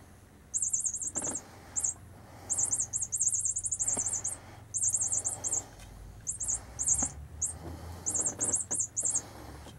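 Hanging bouncy toy mouse chirping with high squeaks in quick bursts of several notes, coming at irregular times as it bounces on its cord, with a few faint knocks.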